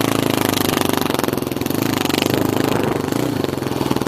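A small engine running steadily with a fast, even pulsing beat, dipping slightly in level about a second in and again near the end.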